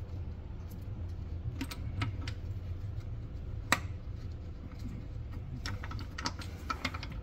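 Scattered light clicks and taps as parts and screws are worked into place by hand, the loudest about three and a half seconds in and a quick run of them near the end, over a steady low hum.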